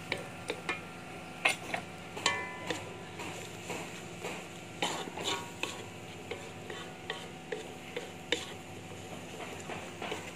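Wooden spatula scraping and tapping against an aluminium wok as chilli sambal paste is stirred and fried, with a light sizzle. The scrapes and taps come irregularly.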